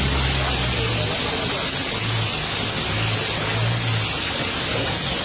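Steady hiss of rain falling, with a faint low hum that comes and goes.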